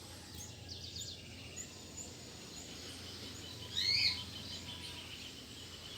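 Birds chirping over faint outdoor background: a few short high chirps early, then one clear arched call about four seconds in.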